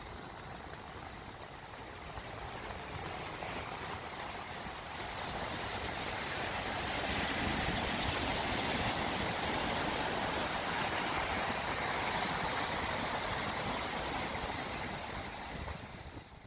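Steady rushing noise, like wind or flowing water, swelling slowly over several seconds and fading away near the end.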